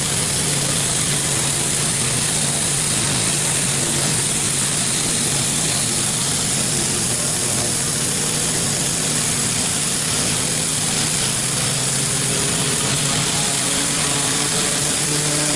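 Hot-water pressure washer powered by a Honda GX630 V-twin petrol engine running steadily under load, with the hiss of the high-pressure water jet washing loose paint off a garage door.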